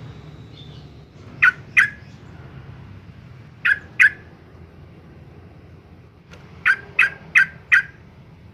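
Yellow-vented bulbul giving short, sharp call notes: two pairs of calls, then a quick run of four, about three a second, near the end.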